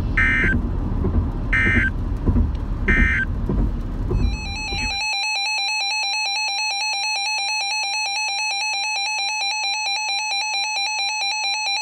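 Three short Emergency Alert System digital (SAME) data bursts over radio hiss and rumble, sent as the end-of-message code after a weather alert. Then, about four and a half seconds in, a steady EAS two-tone attention signal sounds for about eight seconds before cutting off.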